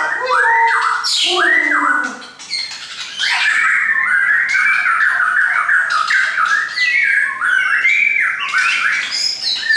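Shama singing a loud, near-continuous, varied song of rich whistled and slurred phrases, with a short lull about two seconds in followed by a fast run of notes.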